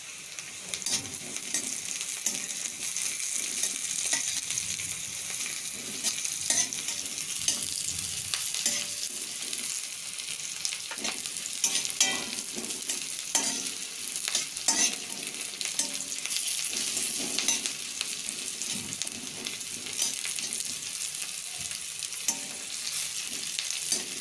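Sliced onions and green chillies sizzling in hot oil in an aluminium kadai, with a metal spatula repeatedly scraping and clicking against the pan as they are stirred.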